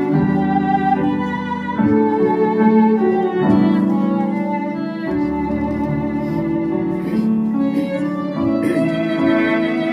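An ensemble of Roland Aerophone digital wind instruments with violins and cellos playing a hymn tune in held notes over a low cello line, the notes changing every second or two.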